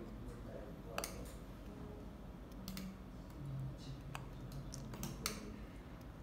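A handful of sharp, irregular clicks as a pointed tool snaps short pieces off a mother-of-pearl strip and presses them into place, the kkeuneumjil technique of nacre inlay.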